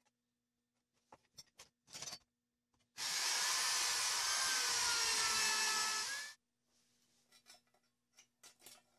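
Hand-held electric drill boring into wood for about three seconds, starting and stopping abruptly, its motor pitch wavering a little under load. Light clicks and taps from handling tools and sheet metal come before and after it.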